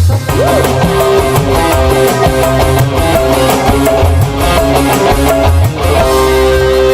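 Live band playing an instrumental passage: guitar over a drum beat, with a long held note near the end.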